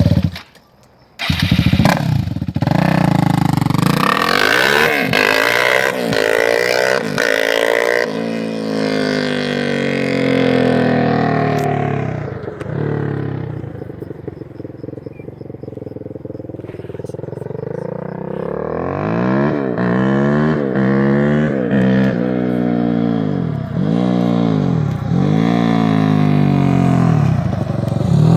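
Suzuki LT-R450 quad's single-cylinder four-stroke engine revving up and down over and over. It is briefly cut off about a second in, runs quieter and duller for several seconds in the middle, and near the end rises and falls in quick revs about once a second.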